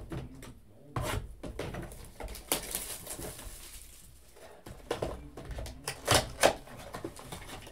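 Cardboard Donruss Optic trading-card box being handled and opened: taps and scrapes of the box on the tabletop, a rustling stretch, then two sharp snaps about six seconds in as the box top is pulled open.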